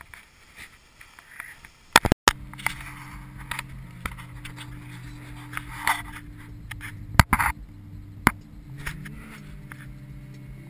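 Car engine running with a steady low hum, heard from inside the cabin, broken by a few sharp clicks and knocks.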